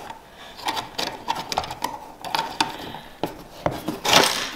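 Irregular small clicks and ticks of a screwdriver driving a screw through a plastic fan clip into the Hyper 212's cooling fan, with one louder brief scrape about four seconds in as the fan is handled.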